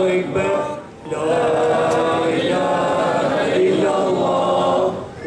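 Men's voices chanting together in long, held melodic phrases, with a brief break about a second in and another near the end.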